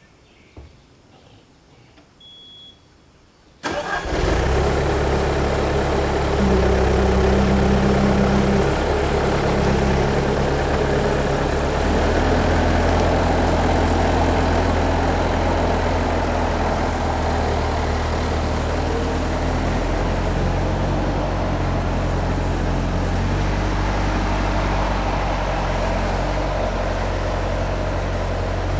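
A large machine engine starts up suddenly about four seconds in and keeps running steadily, its speed shifting a little now and then.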